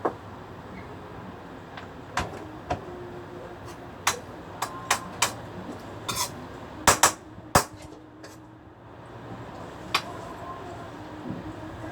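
Scattered, irregular knocks and clatters of kitchen utensils and dishes being handled, a dozen or so sharp strikes with short gaps, the loudest cluster about two-thirds of the way through.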